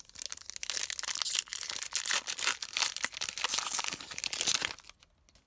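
Crinkly plastic wrapper of a baseball trading-card pack being torn open and crumpled by hand, a dense crackle lasting about five seconds and stopping shortly before the end.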